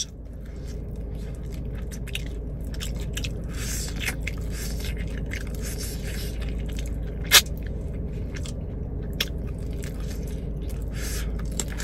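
Close-up eating of bone-in chicken wings: wet chewing, biting and small crunches over a steady low hum, with one sharp click about seven seconds in.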